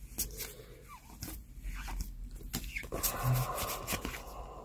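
Pokémon trading cards being flipped through by hand: soft sliding of cardstock with scattered short clicks as each card is moved to the back of the stack.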